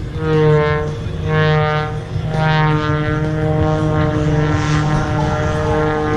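Aerobatic biplane's propeller engine running hard through a dive, its pitch swelling and falling about once a second.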